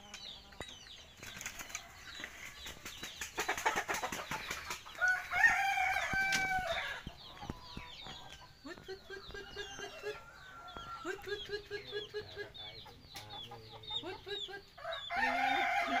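Village birds: small birds chirping throughout, and chickens clucking in short low notes in the second half. A long pitched call comes about five seconds in, after a burst of rustling, flapping-like noise.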